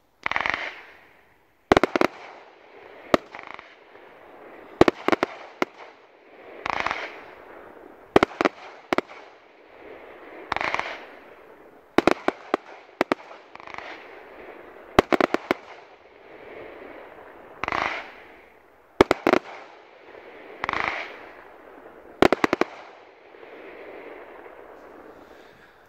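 Ghengis Fireworks category 4 firework cake firing shot after shot, each shot lifting with a hiss and bursting with sharp bangs, about a dozen in all. The firing dies away near the end.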